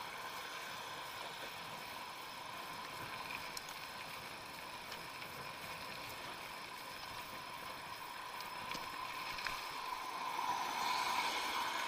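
Electric bicycle riding at speed: steady tyre and wind rush with a constant high whine, growing louder near the end.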